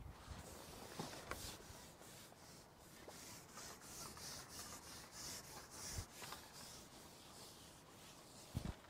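Faint rubbing and rustling, with a few soft clicks.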